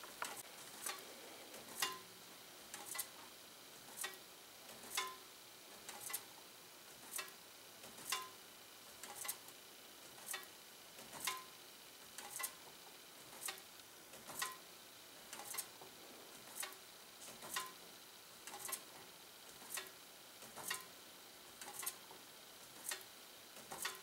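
Box fan turning slowly on reduced voltage from a variable autotransformer, its blades grazing a foil-covered paper tag contact. Each pass makes a light tick, about one a second and some doubled, and each tick is the contact closing that flashes the bulb.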